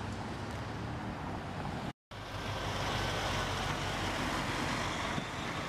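Diesel semi truck running at low speed as the tractor-trailer drives past close by, a steady engine drone with tyre and road noise. The sound cuts out briefly about two seconds in and comes back slightly louder.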